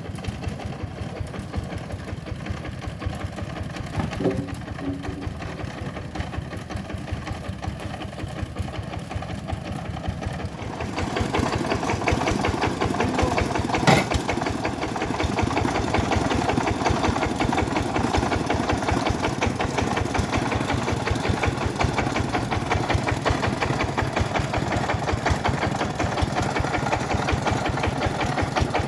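Engine-driven homemade bandsaw mill running with a steady, rapid knocking beat. About eleven seconds in it grows louder and fuller, and there is a single sharp knock a few seconds later.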